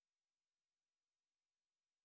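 Near silence: only a faint, even hiss at the level of digital silence.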